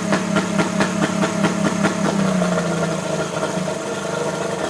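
Yamaha Pro 50 three-cylinder two-stroke outboard running at idle and misfiring, with a regular popping miss about five times a second that fades about two seconds in as the engine smooths out into steady idling. The intermittent miss comes with the motor failing to rev up, despite good compression and spark at idle.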